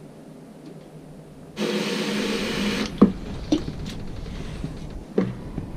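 Tap water rushing into a plastic basin for about a second. Then a few sharp knocks and splashes as a stainless steel mesh strainer of salted worms is dipped and shaken in the water to rinse the salt off.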